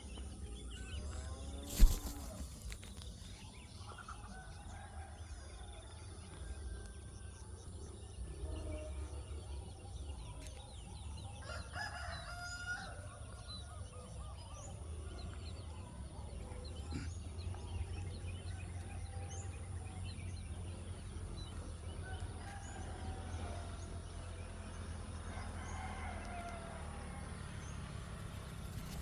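Birds calling, with rooster-like crowing and clucking among scattered short calls, over a steady low rumble. A sharp knock sounds about two seconds in.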